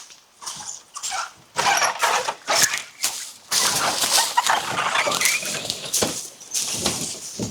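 Footsteps crunching and rustling through ground cover and brush, irregular at first and then a dense run of crackling from about halfway in.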